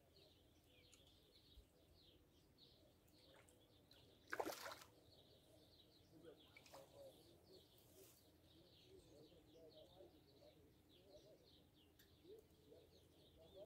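Quiet riverside ambience with faint small-bird chirping throughout. About four and a half seconds in, a brief splash in the water stands out as the loudest sound.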